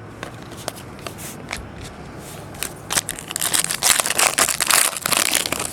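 Trading-card pack wrapper crinkling, with light clicks of cards being handled at first and a loud, dense crinkling from about three seconds in to near the end.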